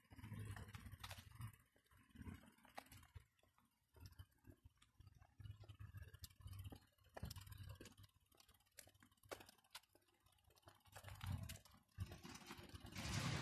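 Faint, irregular footfalls and small clicks of a handheld camera while walking on a path; a louder steady noise sets in near the end.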